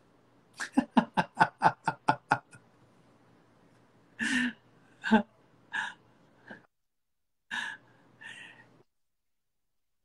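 Men laughing: a quick, even run of about ten short bursts, then a few scattered chuckles, before the sound cuts out near the end.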